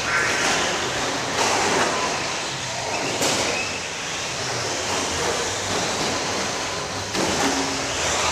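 A pack of 1/10-scale two-wheel-drive remote-control buggies and short course trucks racing on a clay track: a continuous noise of motors and tyres that swells and fades as cars pass.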